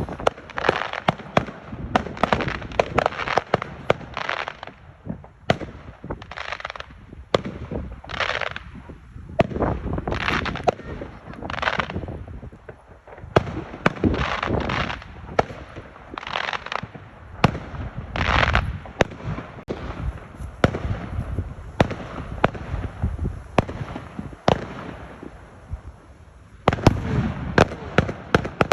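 Fireworks display: a continuous run of sharp bangs from bursting shells, with dense rapid clusters of pops in between.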